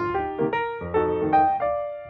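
Background piano music: a quick run of single struck notes, then one note held and fading away near the end.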